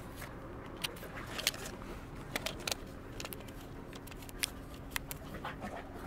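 Handling noise close to the microphone: irregular sharp clicks and small scrapes as a hard black plastic piece is moved in front of the camera, over a faint steady low hum.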